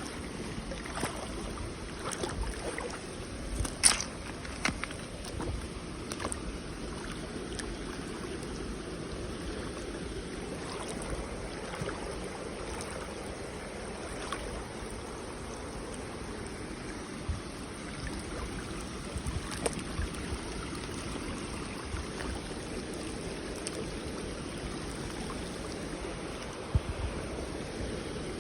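Creek water flowing steadily, with scattered sharp knocks and clicks, most of them in the first few seconds and one more near the end.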